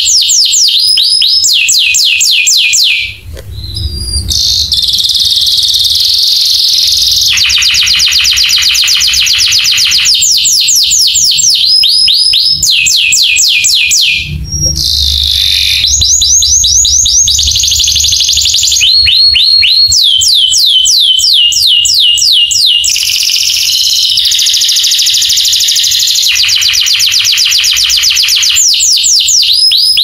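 Domestic canary singing a long, loud song of rapid trills: fast runs of repeated whistled notes alternating with sustained rolling phrases, with short breaks about three seconds in and about halfway through.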